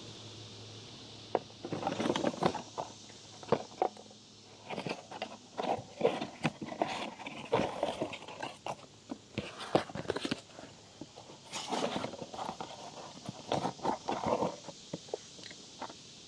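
Irregular scraping, rattling and clicking from hands-on work at a motorcycle's drive chain while it is being lubricated, with a few short hissy bursts.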